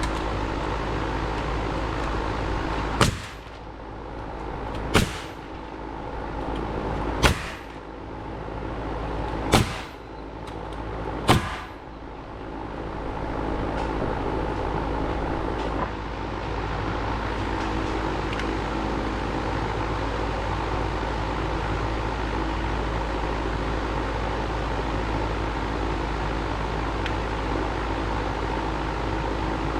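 Five sharp single impacts about two seconds apart, consistent with nails being driven while framing ceiling joists, over a steady machine hum that continues after them.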